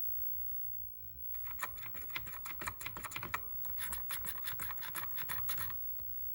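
Keys of a Commodore SX-64 keyboard pressed rapidly in two runs, starting about a second in, each keystroke giving a scratchy, rasping sound. The keys sound scratchy even with a new membrane fitted.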